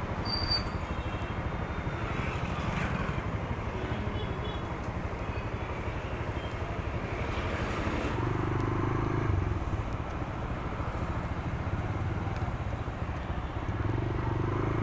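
TVS Raider 125 motorcycle's single-cylinder engine running steadily as the bike rides through city traffic, with road noise.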